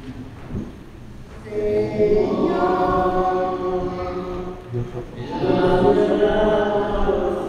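Church choir singing a hymn in long sustained phrases, with a short break about five seconds in before the next phrase.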